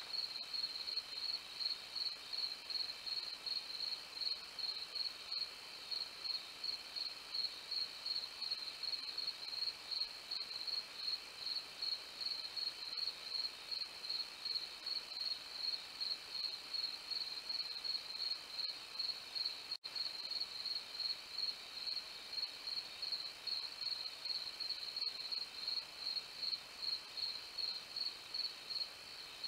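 Crickets chirping in a steady, even rhythm of about three high-pitched chirps a second. The sound cuts out for an instant about twenty seconds in.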